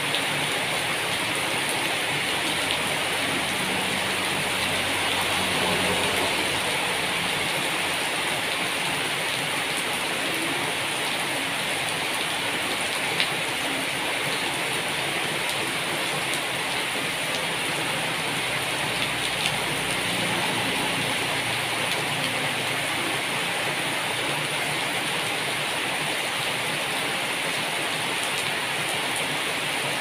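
Steady rain falling on broad, leafy plants, an even hiss of drops with one sharper drop tick near the middle.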